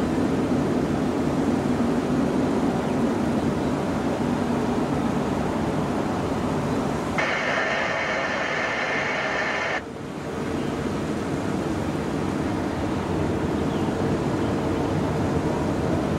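Steady rumbling noise of a distant twin-jet airliner's engines on final approach. Partway through, a separate hiss switches on for about two and a half seconds and cuts off sharply.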